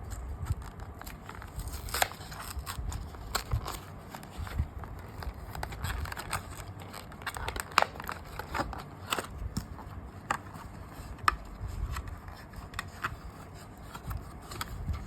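Hot Wheels blister card being opened by hand: stiff plastic blister and cardboard crackling, crinkling and tearing, with irregular clicks and a few sharp snaps.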